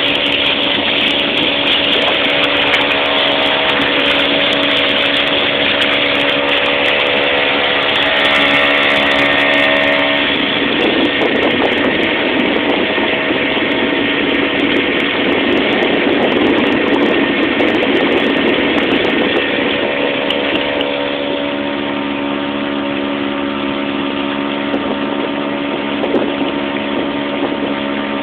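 Small motorboat's engine running steadily while under way, with rushing water and wind noise over it. For a stretch in the middle the engine note is partly drowned by louder rushing noise, then comes through clearly again.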